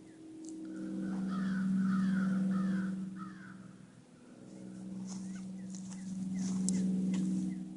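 Crow cawing about four times in quick succession, over a steady low hum that swells and fades twice.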